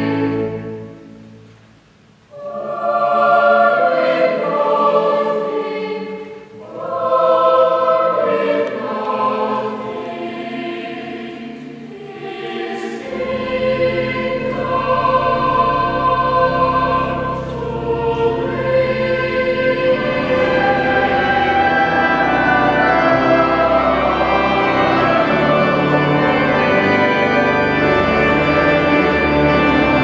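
Cathedral choir of children and adult men singing, the opening chord dying away in the building's long echo before the choir comes in again in short phrases with brief pauses between them. About halfway through, steady deep bass notes from an organ join, and the sound stays fuller and continuous to the end.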